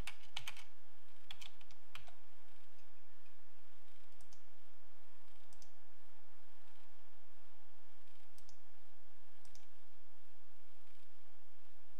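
Computer keyboard keys tapped in a short run during the first two seconds, then four single mouse clicks spread over the rest.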